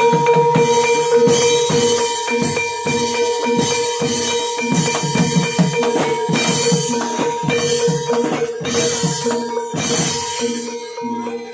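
Live Javanese gamelan accompaniment for a barongan dance: fast hand-drum patterns over struck metal percussion and a steady ringing tone, thinning slightly near the end.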